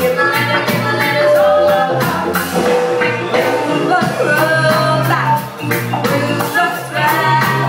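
Live band playing loud: female vocals over electric guitar, a steady low bass line and a drum kit with regular cymbal hits.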